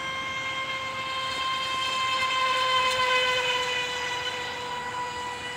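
High-pitched whine of the FT011 RC racing boat's 2400 kV brushless motor running at speed on the water. The whine grows louder toward the middle and then fades a little as the boat passes.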